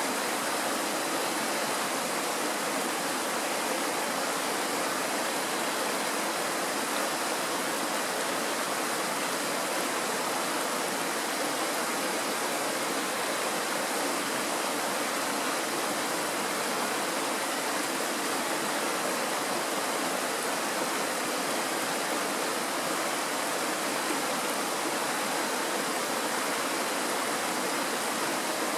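Shallow mountain stream rushing over a stony bed and small riffles: a steady, unbroken sound of running water.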